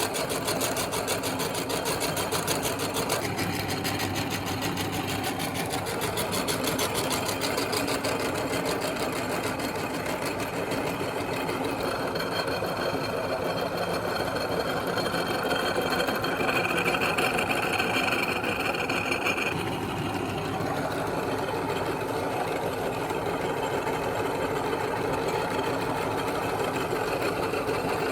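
Electric meat grinder running steadily, its motor driving the auger as it grinds soft material. A higher-pitched whine joins from about twelve seconds in until about twenty.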